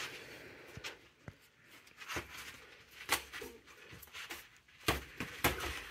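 Boxing sparring: a scattering of short, irregular soft thuds and quick breaths as two boxers in gloves and headgear throw punches and shuffle on foam floor mats.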